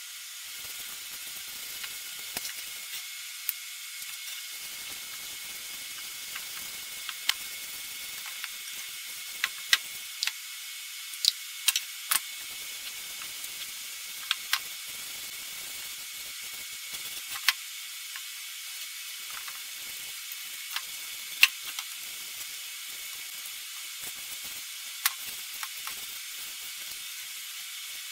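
A cloth rag rubbing oil onto a wooden saw till, with soft wiping, over a steady high hiss, and scattered sharp clicks and knocks as the wood is handled on the bench.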